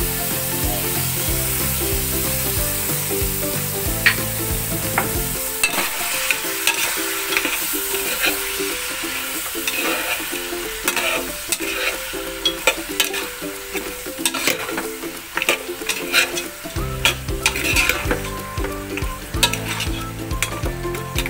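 Pork ribs with sliced tomatoes and onions sizzling in a hot nonstick pan, freshly seasoned with fish sauce, as a metal spatula stirs and turns them. The spatula scrapes and clicks against the pan again and again, most often in the second half.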